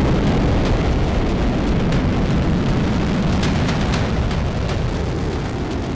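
Liquid-fuel rocket engines of a Hwasong-17 ICBM firing at liftoff: a loud, steady roar, heaviest in the low end, with scattered sharp crackles.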